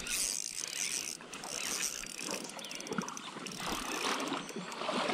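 A spinning reel being wound in against a hooked fish, its mechanism clicking and ticking, over the steady rush of creek water.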